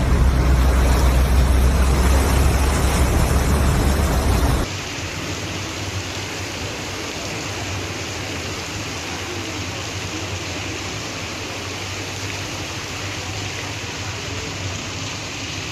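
A car moving through a flooded street: rushing, splashing floodwater over a heavy low rumble. About four and a half seconds in it cuts abruptly to a steady hiss of heavy rain and running water.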